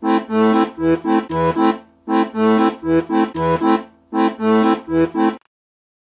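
Accordion playing a repeating phrase of short, detached notes over alternating bass notes and chords, each phrase about two seconds long. It cuts off abruptly near the end.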